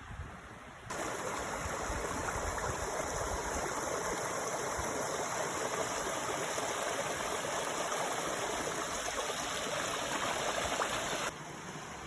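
Mountain stream water running steadily, starting abruptly about a second in and cutting off shortly before the end; low wind rumble on the microphone is heard before and after it.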